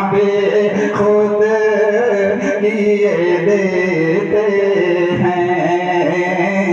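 A man singing an Urdu naat into a microphone, drawing out long held notes.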